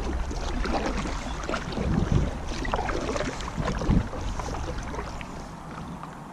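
Kayak paddle strokes dipping and splashing in calm water, with a low rumble of wind on the microphone. The strokes stop about four seconds in and the inflatable kayak glides on quietly.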